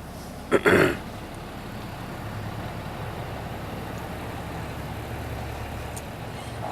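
An engine running steadily at idle nearby, a low hum. A short loud noise close to the microphone comes about half a second in.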